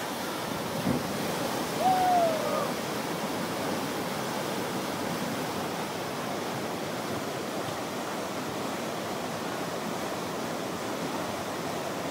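Whitewater rapid rushing steadily, with a brief call rising above it about two seconds in.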